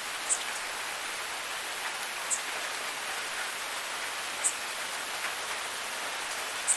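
Steady light rain falling, an even hiss of drops, with a short high tick about every two seconds.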